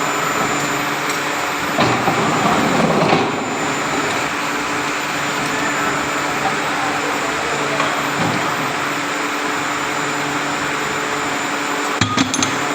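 Press machinery running with a steady motor hum. A rougher, louder rush comes about two seconds in and lasts over a second, and a few sharp clicks come near the end.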